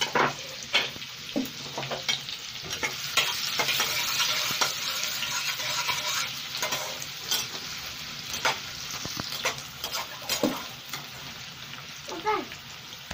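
Chopped onion and garlic sizzling in hot oil in a non-stick kadai while a spatula stirs them, with short scrapes and taps of the spatula against the pan. The sizzle swells for a few seconds early on, then settles.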